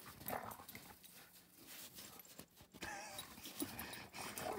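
Dogs play-fighting in snow: faint, irregular scuffling and thudding of paws in the snow as they wrestle and rear up.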